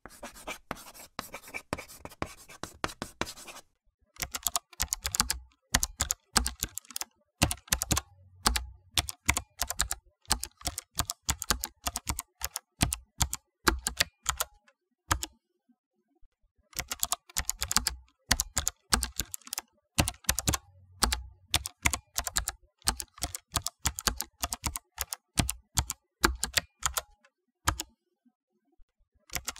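Typing on a computer keyboard: quick runs of clicking keystrokes in bursts, with two brief pauses, about halfway and near the end.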